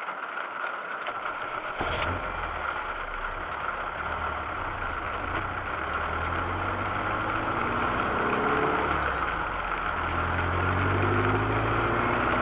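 Rastrojero pickup's engine starting about two seconds in with a click, running, then pulling away, its note rising as it gains speed. A steady hiss of rain runs underneath.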